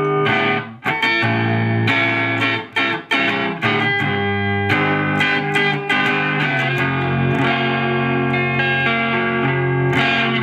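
Electric guitar played through an overdrive pedal based on the Ibanez TS-9 Tube Screamer into a 50-watt tube amp, the pedal's drive turned up and the treble raised a little. Choppy overdriven strummed chords with short breaks in the first half, then held chords ringing on.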